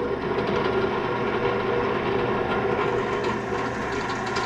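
Drill press motor running steadily with a constant hum while the main drill bit is fed into a flintlock barrel to drill out the touch hole.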